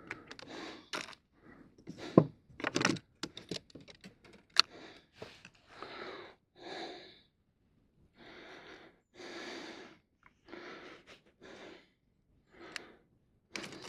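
Quick clicks and knocks of gear being handled for about five seconds, then a run of soft rushing sounds, each about half a second to a second long and spaced roughly a second apart.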